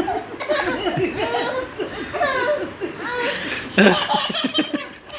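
A baby laughing in quick runs of giggles and squeals, set off by pretend sneezes. A short, loud hissing burst comes about three and a half seconds in, followed by more laughter.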